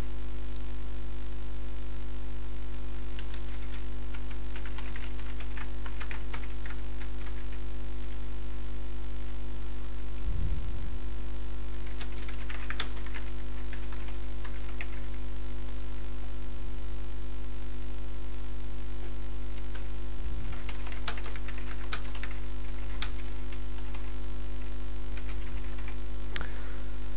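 Computer keyboard typing in scattered runs of key clicks, over a steady, fairly loud electrical mains hum.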